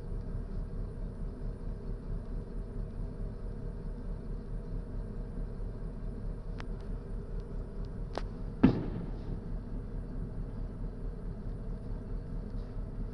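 Steady low background rumble and hum, with a couple of faint clicks and one short thump about two-thirds of the way through.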